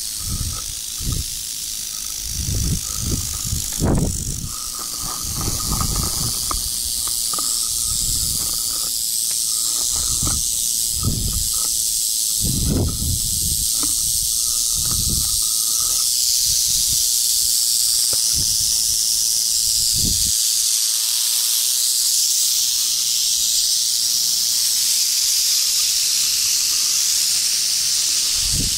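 Rattlesnakes rattling: a continuous high buzz that grows louder after the first few seconds, a defensive warning from snakes coiled at the den mouth. Irregular low thumps on the microphone come and go through the first twenty seconds or so.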